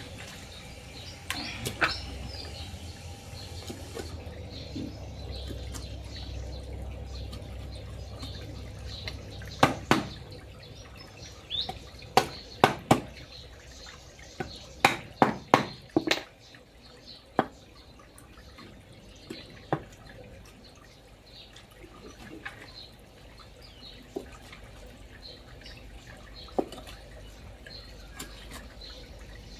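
A hammer striking the back of a cleaver to chop a large fish into pieces on a chopping block. The sharp knocks come in pairs, then a quick run of four about halfway through, then single knocks a few seconds apart.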